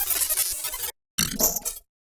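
Digital glitch sound effect: a stuttering burst of distorted noise about a second long, then a short silence and a second, shorter burst of about half a second.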